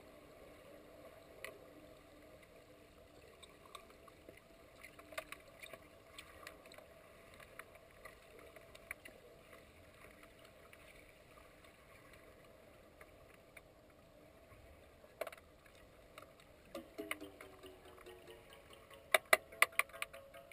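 Underwater pool sound picked up by a submerged camera: a steady hum with scattered faint clicks and knocks, and a quick run of loud sharp clicks near the end.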